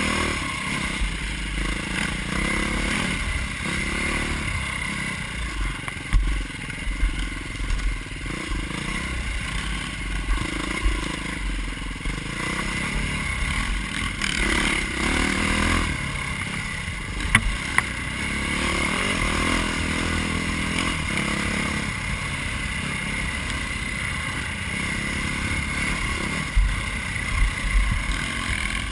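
Dirt bike engine running as it rides a rough trail, with wind rushing over the camera microphone. Sharp knocks and rattles from the bike hitting bumps come through several times.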